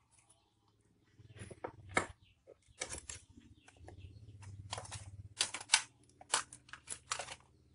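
Irregular clicks and light plastic clatter of hands handling an opened laptop chassis and its wiring, a dozen or so sharp clicks with a faint low hum beneath.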